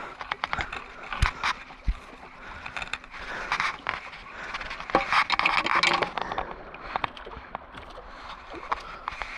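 Seawater sloshing and washing among breakwater rocks, swelling twice partway through, with scattered sharp clicks and scrapes of handling on the rocks.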